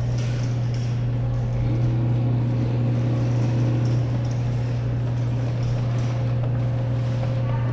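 A steady low electrical hum from the claw machine running, with a fainter higher tone held under it.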